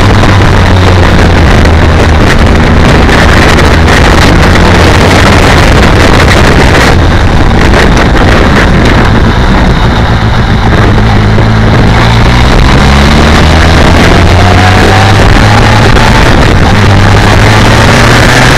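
BMW K1200R Sport's inline-four engine running under way at low revs, loud and steady, with rushing wind noise over it. In the second half the engine note dips and then rises in pitch as the bike picks up speed.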